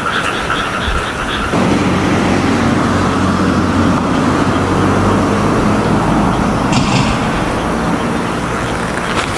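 Steady low hum of a motor vehicle's engine running close by, setting in about a second and a half in. At the start there is a rapid high pulsing chirp, and right at the end a single sharp knock.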